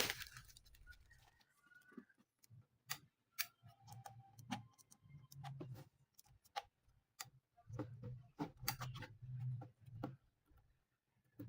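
Scattered light clicks and taps of small objects being handled and set down, with a low hum coming and going in between.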